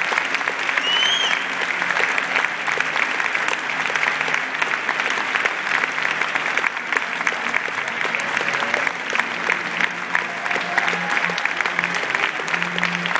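Large theatre audience applauding steadily, a dense continuous clatter of many hands clapping.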